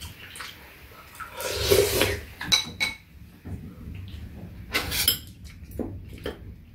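Spoons clinking against soup bowls, with a couple of longer slurps of soup from a spoon, about a second and a half in and again around five seconds.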